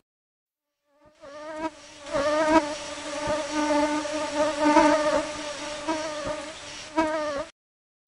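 Flies buzzing in flight: a wavering hum that swells and fades in loudness. It starts about a second in and cuts off shortly before the end.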